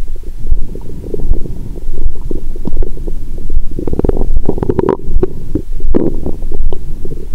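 Stomach and intestines gurgling and rumbling, heard through a stethoscope on the belly, with a louder run of gurgles about four to five seconds in and another near six seconds. These are digestion sounds a few hours after a large meal.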